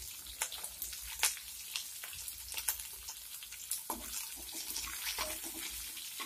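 Sliced onions frying in hot oil in a kadai: a steady sizzle with scattered crackles and pops from the mustard seeds and dals of the tempering. A spoon stirs them about four seconds in.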